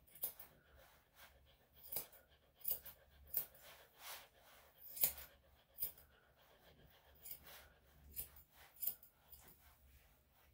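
Grooming scissors snipping through a dog's facial hair: short, sharp snips at an irregular pace, roughly one or two a second, some louder than others.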